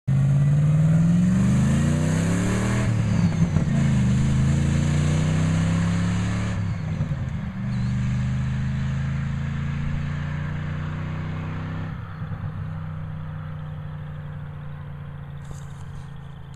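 1998 Ford F-150 pickup's engine accelerating hard, rising in pitch and shifting up through the gears a few times, growing steadily fainter as the truck pulls away.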